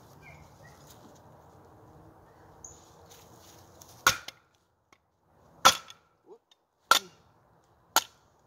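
Batoning firewood with a Timber Wolf Armor of God bowie knife: starting about four seconds in, four sharp knocks of the baton striking the blade's spine, about a second or so apart, drive the blade down through the wood.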